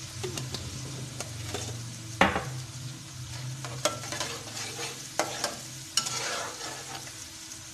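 Ginger-garlic paste and browned onions sizzling in hot oil in a metal karahi while a metal spatula stirs and scrapes them, frying off the paste's raw taste. A few sharp clinks of the spatula against the pan, the loudest about two seconds in.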